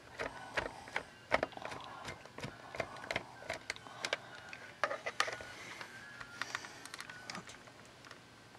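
Screwdriver turning a screw in the housing of a 12V car air compressor: a string of irregular clicks and scrapes as the tool bites and slips, with a few faint squeaks.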